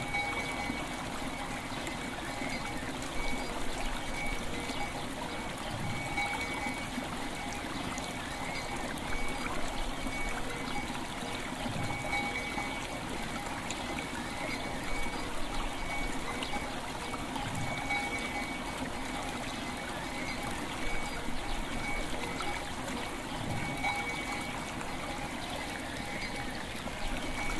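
River water flowing steadily, with a bell struck about every six seconds and ringing on between strikes.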